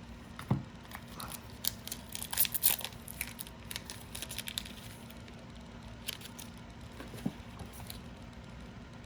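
A foil trading-card booster pack crinkling and tearing as it is opened, in clusters of sharp crackles with a pause in the middle.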